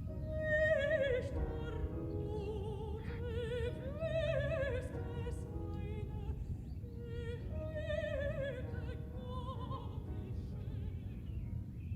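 A high voice singing in operatic style, long held notes with wide vibrato in several phrases, over a steady low rumble.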